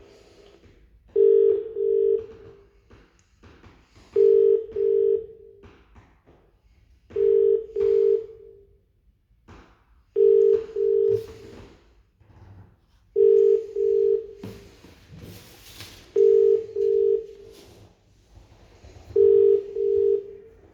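British telephone ringing tone (ring-back) through a phone's loudspeaker: a double ring, two short beeps, repeated every three seconds while the call waits to be answered in the queue.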